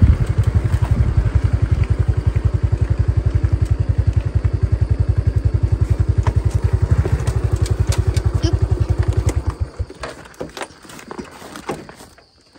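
Small motorcycle with a side-car cart running along a dirt road, its engine a steady, rapid exhaust beat. The engine sound stops abruptly about ten seconds in as the bike halts, and a few light knocks and rattles follow.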